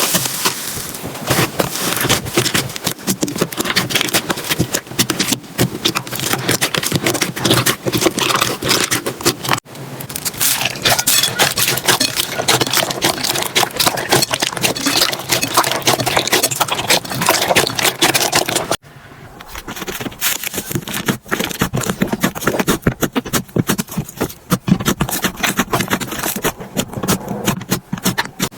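Slime being squeezed, pressed and poked by hand, giving a dense stream of small crackles, pops and clicks. The sound cuts off and restarts abruptly twice, about ten and nineteen seconds in, with a slightly different texture each time.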